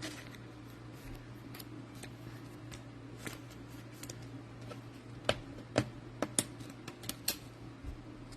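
Trading cards and plastic card sleeves being handled, giving scattered light clicks and taps, with a run of sharper clicks about five seconds in. A steady low hum runs underneath.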